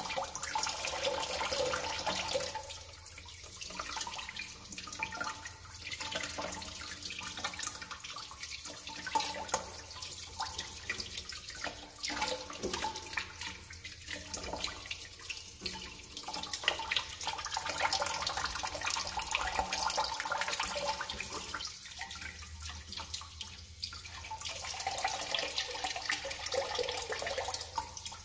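Water pouring from the open bottom of a chrome sink drain trap and splashing into a bucket of water as the clog is flushed out; the splashing swells and dips every few seconds as the flow and the hand in the stream change.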